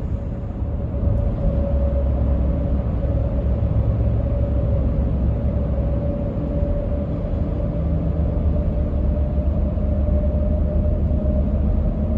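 Steady rumble of a car travelling at highway speed, with a thin steady whine that creeps slightly up in pitch.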